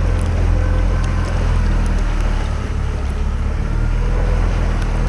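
Speedboat's outboard motor running steadily: a low drone over a rushing hiss of water and wind, stepping up in loudness right at the start.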